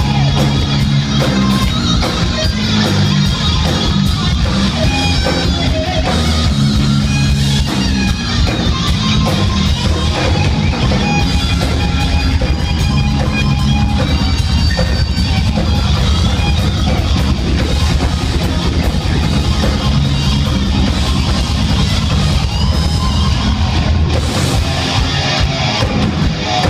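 Live hard rock band playing an instrumental passage, electric guitars riffing over bass and drum kit, loud through a club PA.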